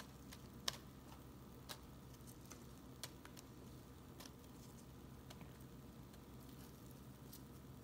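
Faint, light clicks and taps, about one a second and unevenly spaced, as cucumber slices are dropped into a plastic salad bowl of romaine lettuce, over a low steady room hum.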